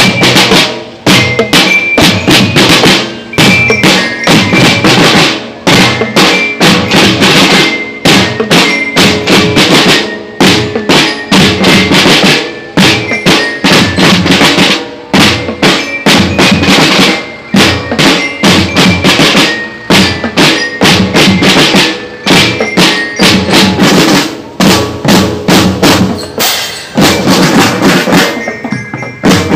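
Marching drum band playing loudly and without a break: snare and marching drums beating fast rhythms and rolls, with hand cymbals crashing.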